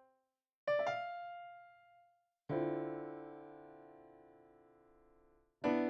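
Background piano music: three separate chords struck one at a time, about a second in, near the middle and just before the end, each left to ring out and fade, with short silences between them.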